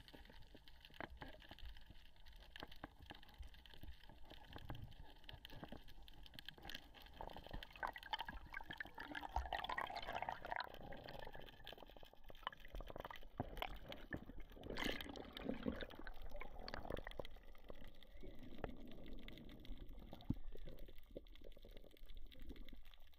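Faint underwater sound: water swirling and bubbling, with scattered small clicks and knocks.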